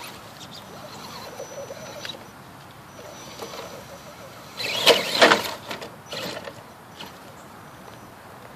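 Electric RC crawler (Axial SCX10) driving over grass, its motor giving a thin high whine that comes and goes with the throttle. About five seconds in there is one loud noisy burst lasting about a second.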